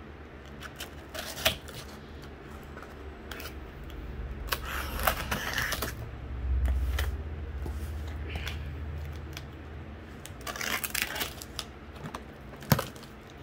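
Packing tape being slit and peeled off a cardboard shipping box: two longer scratchy rips, about five and eleven seconds in, among sharp clicks and cardboard handling.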